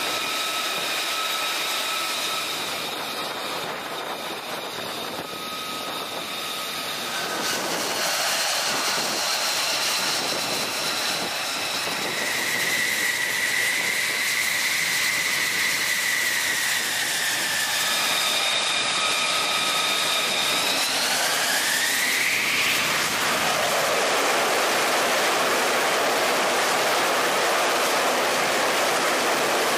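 F-35C's Pratt & Whitney F135 turbofan running with a steady jet whine over a rushing noise. About two-thirds of the way through, the whine rises sharply as the engine spools up and the rush grows louder: the jet going to launch power on the catapult.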